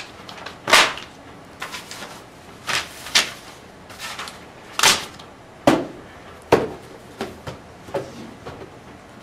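Paper test booklets, scantron sheets and a tissue box slapped down one after another onto a laminate school desk: a string of sharp slaps, six of them loud, with softer taps between.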